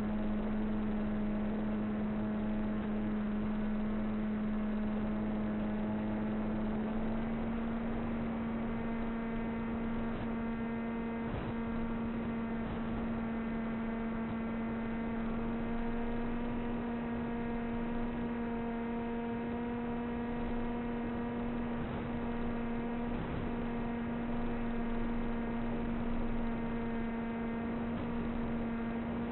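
A steady mechanical hum from a motor, one pitch with many overtones, that steps slightly higher about seven seconds in.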